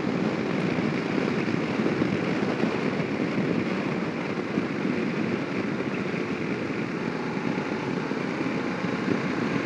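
Voge DS 900 X motorcycle cruising steadily at about 85 km/h, heard from the rider's position: an even rush of wind and road noise blended with its BMW-derived parallel-twin engine.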